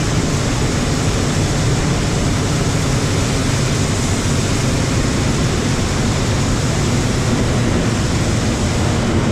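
Hot air balloon's propane burner firing in one long, loud, steady blast, heating the envelope for lift-off.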